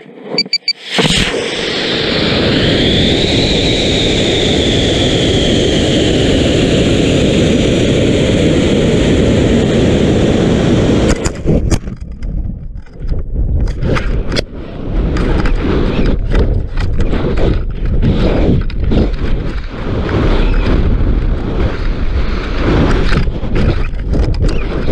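Onboard sound of a high-power rocket launch: about a second in, the rocket motor ignites with a sudden loud roar of exhaust and rushing air, carrying a whistling tone that rises and then slowly falls. Around eleven seconds in the steady roar cuts off abruptly, giving way to uneven, gusty wind buffeting with sharp rattles against the airframe as the rocket flies on and descends under its parachute.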